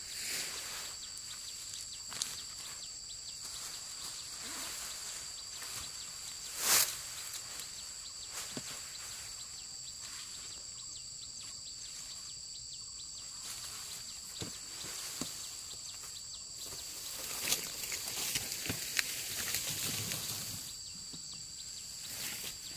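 Scattered rustling and crackling of dry rice stalks being handled in the field, with one sharp crack about seven seconds in and busier crackling later on, over a steady high-pitched two-tone drone.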